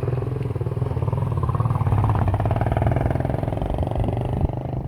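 Diesel engine of a JCB 3DX backhoe loader running under load, swelling in level through the middle and easing off toward the end, with a single sharp clank near the end.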